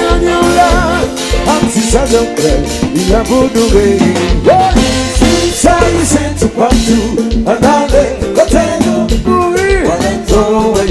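A Haitian kompa song with a male lead singer, with an acoustic drum kit playing along on drums and cymbals in a steady groove.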